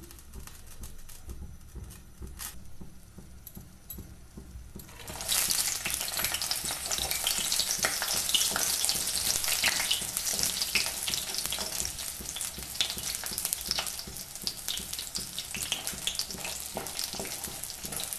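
Makhana (puffed lotus seeds) hitting hot oil in a kadhai: the oil starts to sizzle suddenly about five seconds in, then fries with a dense crackle while the seeds are stirred.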